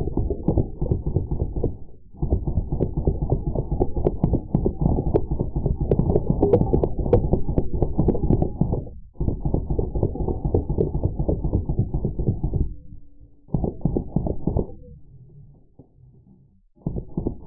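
Full-auto bursts from Drozd Blackbird BB machine guns, slowed down into a deep, rapid stream of thuds. They come in runs of several seconds with short breaks, and fall off to a quieter stretch near the end.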